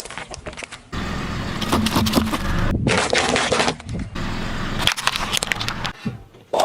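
Car tyres rolling over and crushing crunchy objects: a dense run of cracking snaps over the low rumble of the car, broken into several short segments that start and stop abruptly.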